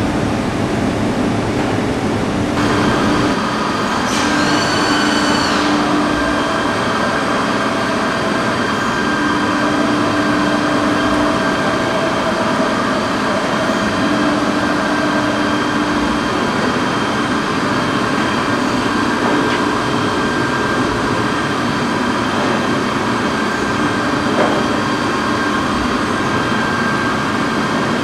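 Soraluce SP 8000 CNC milling and boring centre running: a steady machine hum with several whining tones. A whine rises and falls briefly about four seconds in, and a low tone comes and goes every few seconds.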